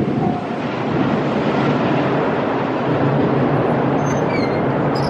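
Train running past with a steady rumble of wheels on the rails, with a few brief high squeaks near the end.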